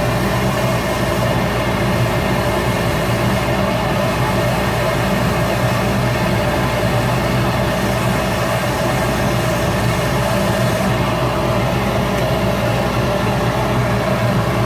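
Shop Fox W1836 midi wood lathe running at a steady speed with a cork grip spinning on it, giving a continuous even hum.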